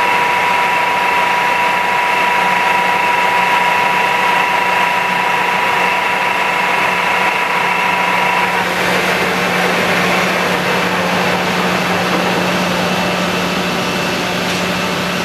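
Ingersoll CNC planer mill running with its 90° right-angle milling head: a loud, steady machine hum with a high whine. A little over halfway through, the whine stops and the sound turns rougher and noisier, then cuts off suddenly at the end.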